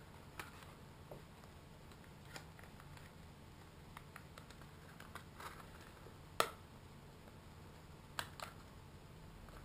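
Faint scattered clicks and taps of a Blade mCP X micro helicopter's plastic canopy being handled and fitted onto its frame, with one sharper click a little past the middle.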